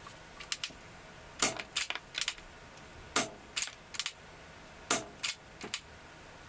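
Tokyo Marui Curve non-blowback gas airsoft pistol firing single shots through a chronograph: several sharp pops, quite loud, with no slide cycling between them.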